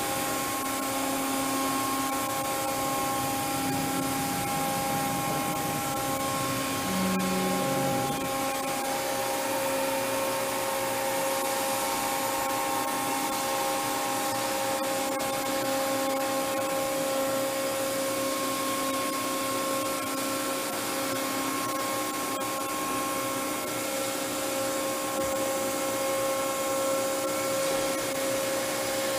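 KAFO KG-10080 gantry-type 5-axis machining center running: a steady hiss with a steady hum of several even tones, and a brief lower tone about seven seconds in.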